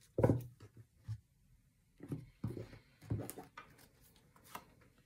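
Tarot cards being handled over a cloth-covered table: a series of soft, irregular taps and rustles as the deck is worked and cards are drawn, most of them in the first half-second and between two and three and a half seconds in.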